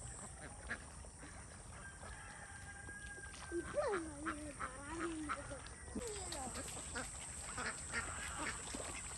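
A flock of domestic ducks quacking, faint at first and calling more often from about three and a half seconds in.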